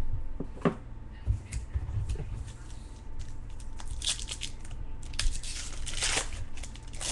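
A trading-card pack's wrapper being torn open and crinkled, with longer crinkling stretches about four and six seconds in, and the cards handled with scattered light clicks and knocks.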